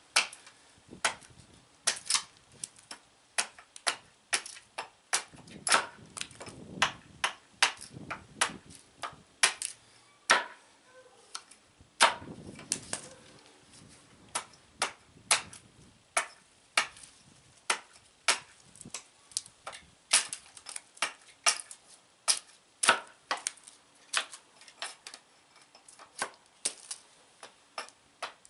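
Modified carpenter hatchet hewing a pole of partly seasoned cherry: a long, irregular run of sharp chops into the wood, roughly two a second, as one side of the pole is flattened.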